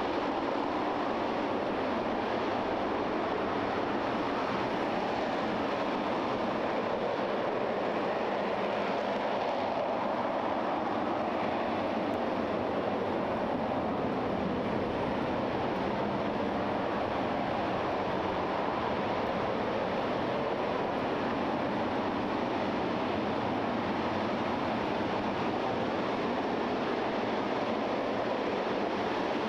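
RS-25 liquid-hydrogen/liquid-oxygen rocket engine in a static test fire: a steady, unbroken rush of noise that holds the same level throughout.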